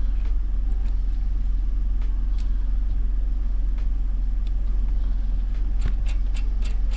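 Vehicle engine idling steadily, with light metallic clinks from trailer safety chains and coupler hardware being handled at the hitch, several of them near the end.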